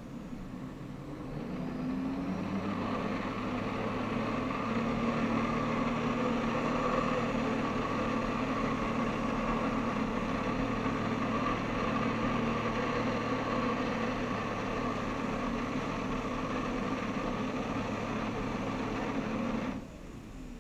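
Personal watercraft engine driving a Flyboard: it revs up about two seconds in, holds a steady high throttle while pumping water up the hose to the board, then drops back abruptly near the end.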